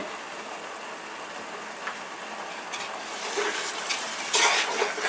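Masala gravy sizzling in a metal pot, then a metal ladle stirring and scraping through it from about three seconds in, in several strokes.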